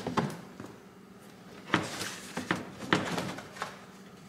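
Plastic underbody skid plate knocking and clattering against the car's underside as it is pushed up into place by hand, with a light rustle at first and then a handful of sharp knocks in the second half.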